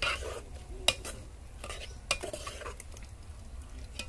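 Metal spoon stirring chicken curry in a metal pot, scraping and knocking against the pot's side, with a sharp clink about a second in.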